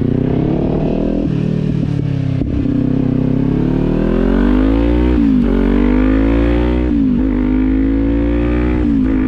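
Kawasaki 400 motorcycle's parallel-twin engine accelerating through the gears. The engine note climbs, then drops sharply at each upshift: about five seconds in, about seven seconds in and near the end.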